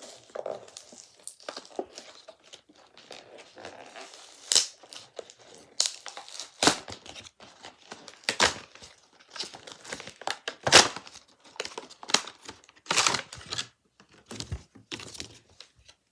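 Toy packaging being torn and crinkled open by hand: irregular rustling with a series of sharp rips, the loudest about halfway through and again near 13 seconds.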